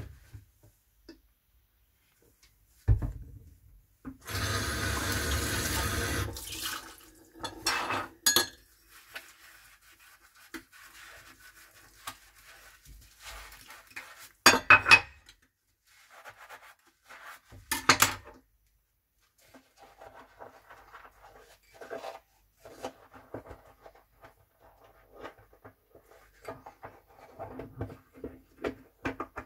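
Hand washing of dishes in a sink. A few seconds in, the tap runs for about two seconds. Ceramic cups and metal spoons knock and clink against each other and the sink, and in the second half a scouring sponge scrubs a cup in short repeated strokes.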